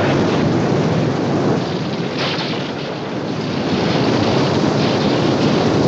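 Film soundtrack of a dam bursting: a loud, steady rush of floodwater pouring over and through the dam, easing slightly midway and building again.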